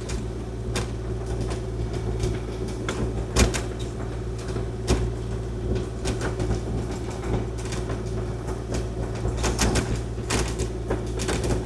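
Kubota KX040-4 mini excavator's diesel engine running steadily, with frequent knocks and rattles through the machine as it pushes snow with its blade and rides over bouncy spots where snow is freezing to the tracks.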